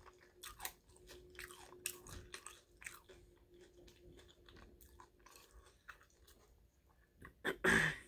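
A person chewing soft food, pastrami from a sandwich, close to the microphone: faint wet mouth clicks and smacks. One louder, brief noisy sound a little before the end.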